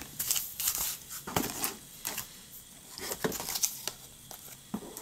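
Plastic blister packs on card backing being handled and shuffled against each other: irregular crinkles and light clicks of plastic.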